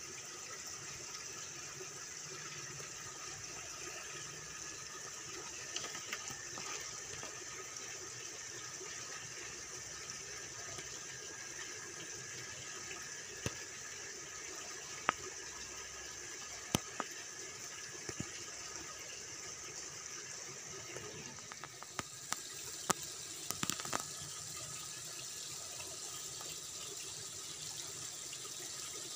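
Steady rush of running water, with a few sharp clicks in the second half.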